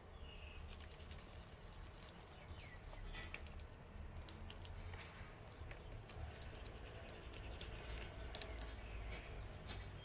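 Water falling onto a potted orange seedling as it is watered from above, pattering and dripping onto its leaves and the soil in the pot as many small splashes. It starts about a second in and stops near the end.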